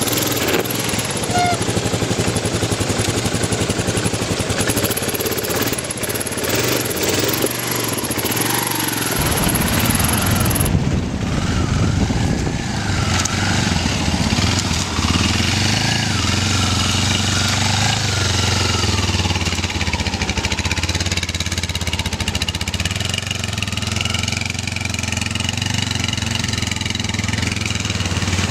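Dual-sport motorcycle engine running steadily at low revs.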